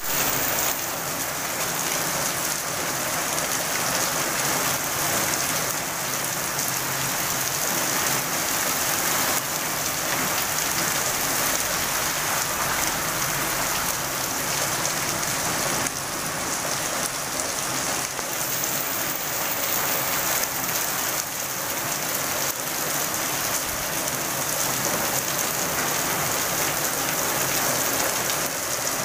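Steady rain falling on a wet paved street, an even hiss of drops that keeps up at the same strength throughout.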